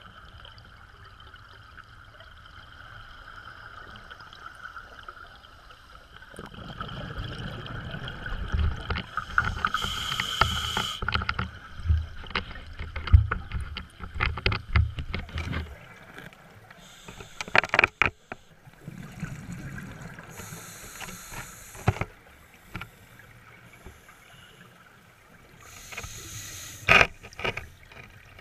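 Scuba diver breathing through a regulator underwater: short hissing inhalations recurring every several seconds and a long low rumbling run of exhaled bubbles in the first half, with scattered sharp clicks.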